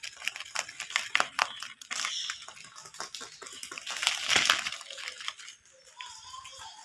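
Rabbits chewing and tearing fresh green leaves: rapid crisp crunching and crackling of leaves, loudest a little after four seconds in.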